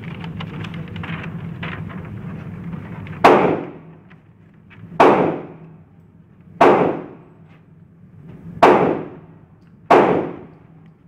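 Five gunshots fired one at a time, a second or two apart, starting about three seconds in. Each has a short ringing tail of reverberation.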